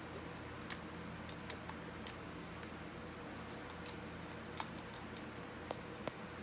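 Light, irregular metallic clicks from a Honda Rancher 420 clutch pack as the center clutch is twisted back and forth on the basket to line up the steel plates' splines, over a steady low hum.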